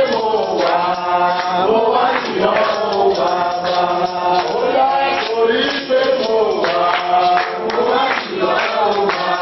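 Church choir singing a hymn, many voices holding long notes.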